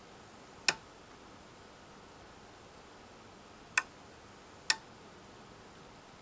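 The mains relay on a Samsung UE55F6740SB LED TV's power supply board clicking three times at uneven intervals as the set tries to power up and trips out again. The repeated clicking is the symptom of a common fault in which the power factor correction circuit is not running.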